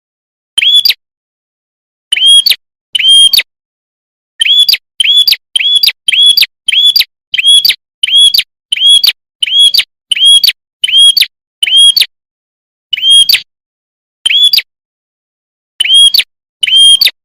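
Bird-lure recording of a red-headed prenjak (prinia-type songbird) calling: a long series of short, identical sharp chirps, each rising and then holding, repeated with irregular gaps and coming fastest, about one and a half a second, through the middle. Very loud and clear.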